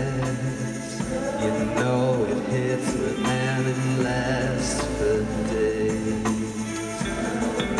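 Rock band playing live on stage: electric guitars, keyboards and drums over a bass line.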